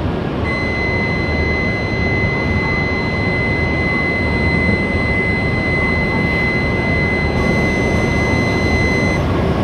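A steady high electronic warning tone sounds for about nine seconds while the doors of an E7 series Shinkansen close, then cuts off just before the end. Under it is the constant hum of the standing train and the station.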